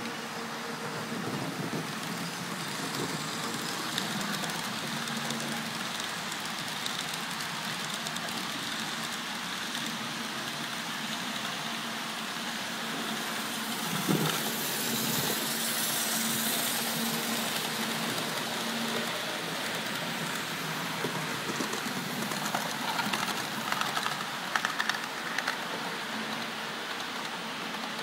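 HAG model electric locomotive hauling a train of coaches along model railway track: a steady hiss of wheels on rail with a faint motor hum, swelling as the train passes close about halfway through, then light clicks near the end.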